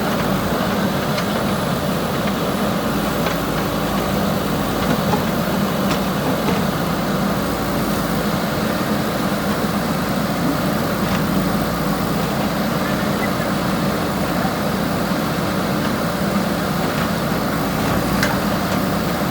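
Diesel engine of a JCB 3DX backhoe loader running steadily, with a few faint clicks.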